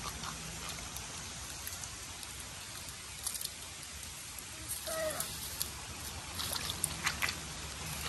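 Hands digging in wet, waterlogged mud: soft wet squelches and trickling over a steady watery hiss, with a few faint clicks and a short high call about five seconds in.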